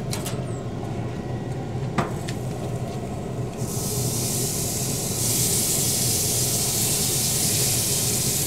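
A steady low hum runs throughout, with a single click about two seconds in. About three and a half seconds in, a loud steady hiss like sizzling sets in, growing louder about five seconds in, while apple juice is brushed onto a smoked pork neck on the grill rack.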